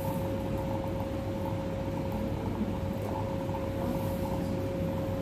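Steady machine hum with a single unwavering mid-pitched tone running through it, like an appliance or ventilation unit running.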